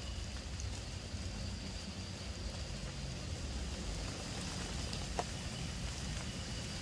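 Steady outdoor background noise: a low rumble with a faint steady high whine, broken by one short click about five seconds in.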